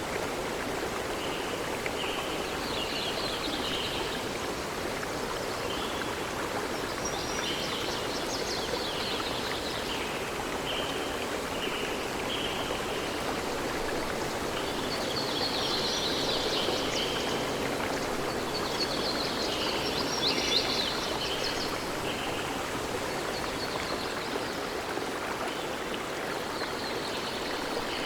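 Steady rush of running water with small birds singing over it in short chirping phrases, repeating every second or two and busiest past the middle.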